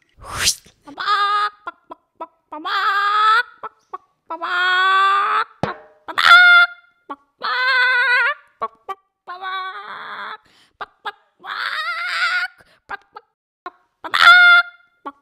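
A chicken squawking in distress: about eight loud, drawn-out cries, each under a second, with short clicks between them.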